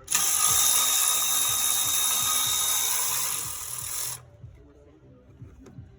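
Handheld power tool running steadily for about four seconds, dipping slightly near the end, then stopping, as it spins the socket on the inlet NOx sensor of a DD15 diesel.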